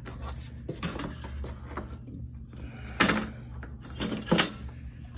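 Clattering knocks of a steel food bowl being set inside a plastic pet carrier and the carrier's wire door being pushed shut, with the loudest knocks about three seconds in and again a second later.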